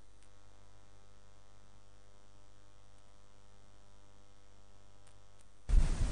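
Steady electrical mains hum with a faint hiss from the recording chain. A few faint clicks come through, and a sudden loud rush of noise on the microphone cuts in near the end.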